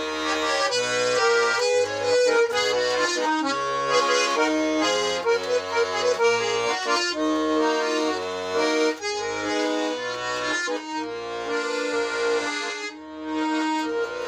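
Instrumental break between the verses of a song: a melody line over a regular alternating bass-and-chord accompaniment, with no singing.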